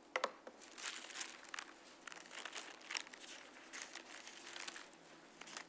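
Bible pages faintly rustling as they are leafed through, a series of soft paper flicks, with a sharper tick just after the start.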